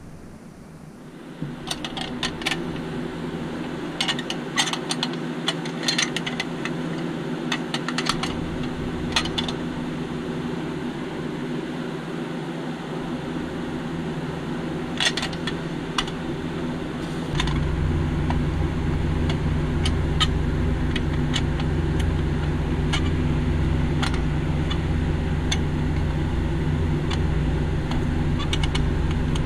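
Light clicks and taps of a pressed-steel Tonka Snap Dragon toy van being handled and turned over, over a steady low hum that gets louder about two thirds of the way through.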